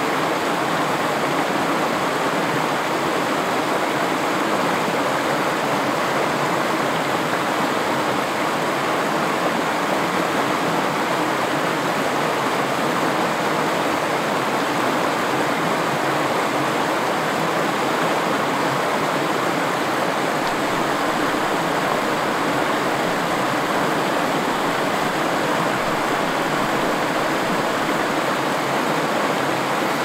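Mountain stream rushing over rocks and small cascades, a steady, even sound of running water.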